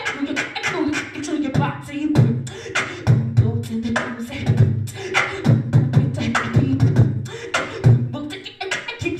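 A beatboxer performing into a handheld microphone: a quick rhythm of sharp mouth-made snare and hi-hat clicks over deep hummed bass tones.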